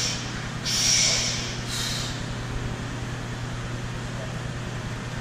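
A few short, sharp hissing breaths in the first two seconds, the loudest about a second in, from a powerlifter bracing under a heavy barbell before the squat. They sound over a steady low hum.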